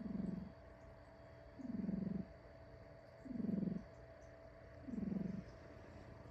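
Sleeping elderly house cat snoring: a low, fluttering, purr-like rumble on each breath, about one every second and a half, four in all.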